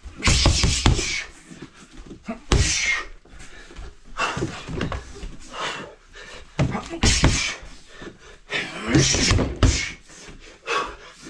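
Gloved punches thudding against a homemade mook jong (wing chun wooden dummy) in a series of short flurries, with sharp hissing exhales on the strikes.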